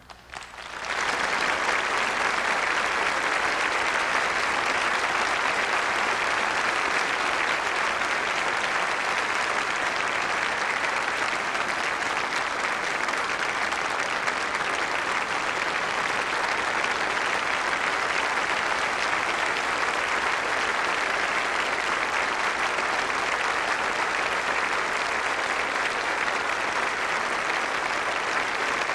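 Audience applauding, rising within the first second to a steady, dense clapping that holds throughout.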